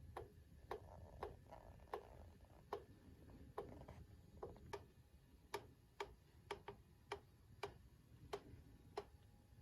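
Faint, sharp ticks at uneven spacing, roughly one to two a second, over near silence.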